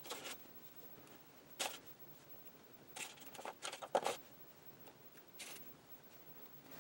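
Faint clicks and rubs of small plastic air-filter plugs being pushed one by one into the breather holes of a continuous ink system's cartridges. The clicks are separate, with a quick cluster of them about three to four seconds in.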